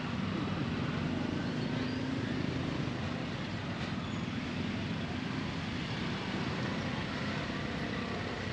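Small motorbike engines running at low speed in a crowded street, a steady low drone over general street noise.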